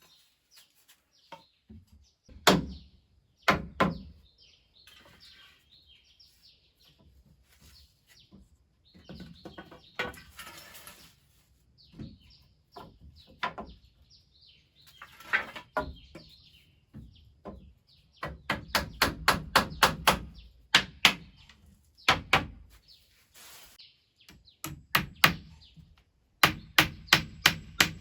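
Hammer blows on wood: scattered single knocks, then two quick runs of even strikes, about three a second, in the second half. Small birds chirp in between.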